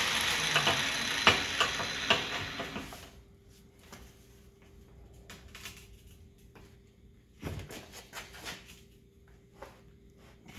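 A DeWalt angle grinder with a cutoff wheel spinning down and dying away over the first three seconds, with a few sharp metal clinks. After that come scattered light metal clanks and a thump from an adjustable wrench being fitted on a scored steel plate to bend it by hand, over a faint steady hum.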